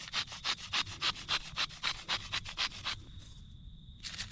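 A spice shaker shaken over turkey strips, sprinkling game seasoning in quick, even strokes about four a second; the shaking stops about three seconds in.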